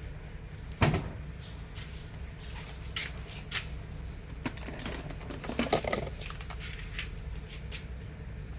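Scattered knocks and clicks of hard parts being handled during an installation job: one sharp knock about a second in, a few lighter clicks, then a short cluster of knocks past the middle, over a steady low hum.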